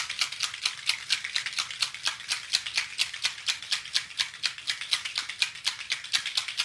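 Four small bottles of alcohol ink shaken together by hand, rattling in a fast, even rhythm of about six strokes a second, to mix the ink before use.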